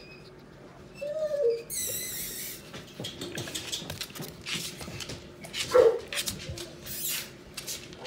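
A puppy whimpering and yipping: a short whine about a second in, a high thin squeal just after it, and a louder yip near six seconds. Scattered clicks and taps fill the gaps between the calls.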